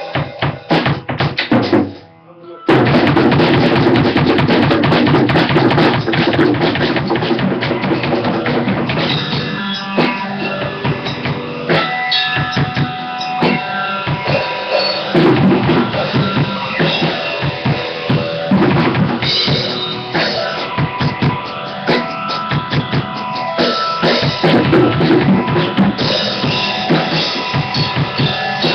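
Drum kit being played: a few hits, a short pause about two seconds in, then continuous fast drumming with cymbals ringing.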